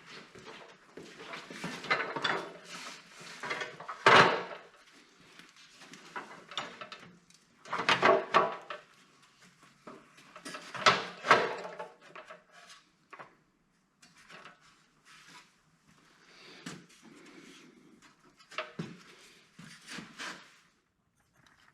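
Irregular knocks, clunks and scraping of tool and stand parts being handled, loudest about four, eight and eleven seconds in and sparser toward the end.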